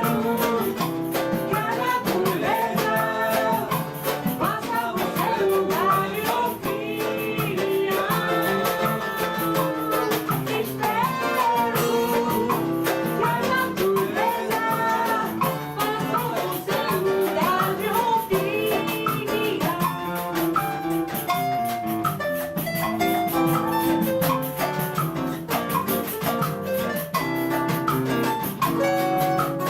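Samba band playing live: a sung melody over cavaquinho, seven-string guitar and hand percussion such as pandeiro, tantan and surdo, keeping a steady rhythm.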